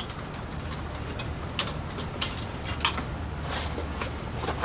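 Scattered light clicks and taps of plastic parts and clips being handled, over a low steady hum.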